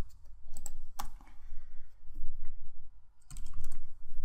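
Computer keyboard typing, in two runs of quick keystrokes: one about a second in, the other near the end, with a quieter gap between.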